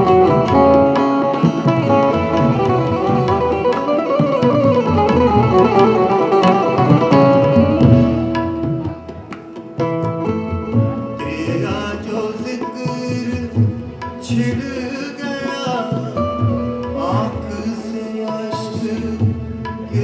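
Ghazal accompaniment: a harmonium holds a sustained melody over tabla strokes. It grows softer about nine seconds in, then carries on more thinly with gliding melodic lines.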